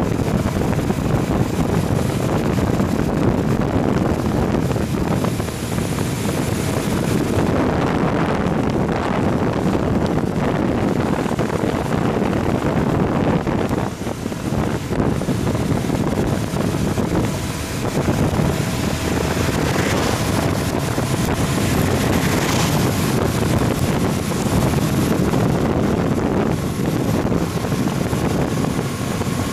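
Heavy wind noise on the microphone over the steady drone of a moving vehicle.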